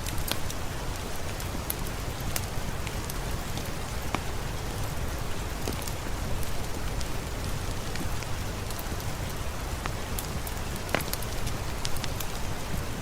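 Steady rain falling on a surface, an even hiss with scattered sharp ticks and pops throughout.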